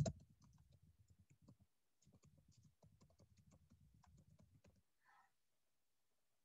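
Faint typing on a computer keyboard, a quick run of key clicks that stops a little before five seconds in.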